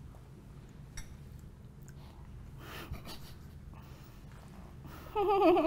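Quiet room with a few faint clicks of spoons against small bowls and soft breathing as people eat. About five seconds in, a person gives a short vocal sound with a wavering, shaky pitch.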